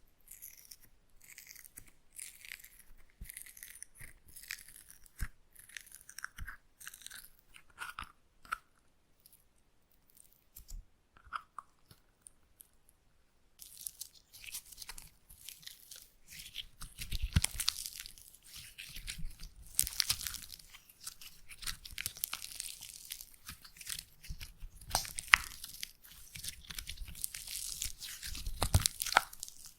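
Slime being squished and worked close to the microphone as ASMR ear-cleaning sounds: sparse wet crackles at first, a few seconds of near silence, then denser and louder crackling and squelching from about halfway through.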